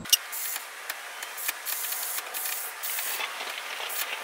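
Aerosol spray can hissing in a series of short bursts.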